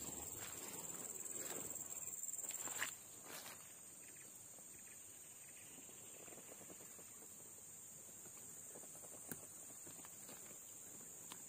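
Steady high-pitched drone of forest insects, with rustling footsteps for the first three seconds or so, after which only the insects and a couple of single faint clicks remain.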